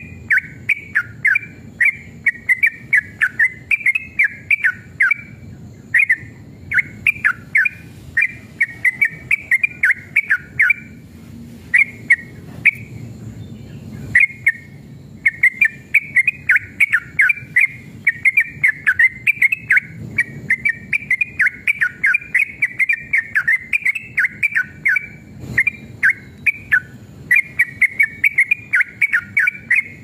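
Yellow-vented bulbul singing in long, rapid chattering runs of bubbly whistled notes, broken every few seconds by short pauses.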